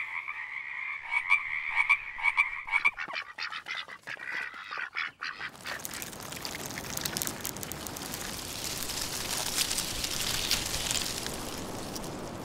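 A croaking call pulsing for about three seconds, then scattered clicks, then a dense crackle of tiny clicks from a swarm of small shelled crabs scuttling over a wet shore.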